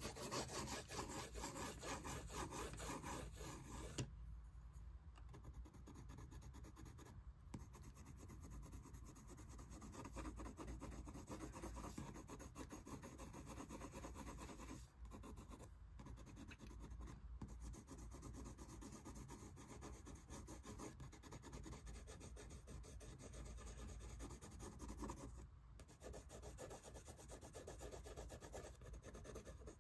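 Colored pencil shading on paper: fast back-and-forth strokes scratching and rubbing, louder for the first few seconds, with a few short pauses.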